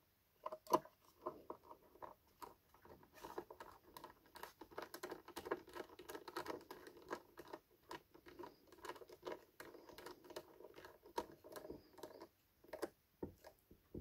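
A small Phillips screw being driven into a plastic battery box cover with a precision screwdriver: a faint, rapid run of clicks and scratches as the bit turns. There is one sharper click about a second in, and the clicking is busiest in the middle before it thins out.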